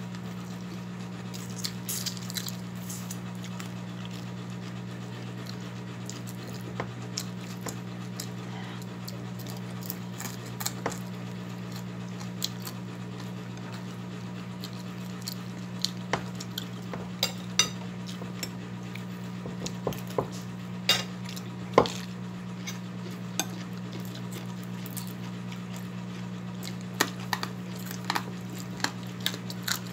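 Scattered clinks and taps of a metal spoon and fingers against a plate during eating, sparse at first and more frequent in the second half, with one sharper clink near the end, over a steady low hum.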